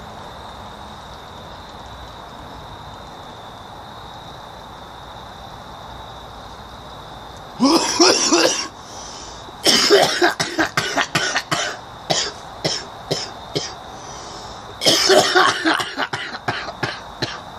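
A man coughing hard after inhaling smoke from a glass pipe. A first harsh burst comes about seven and a half seconds in, followed by a run of short, rapid coughs and another long harsh bout near the end.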